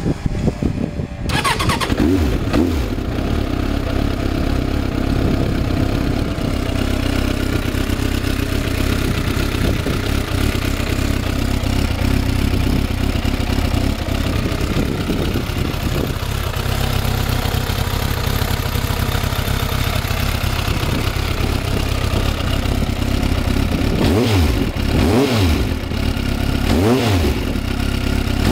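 Suzuki GSF750's oil-cooled inline-four through a Tech Serf full exhaust with a modified silencer. It is cranked and catches about a second in, then idles steadily, and near the end it is blipped several times in quick rises and falls of revs.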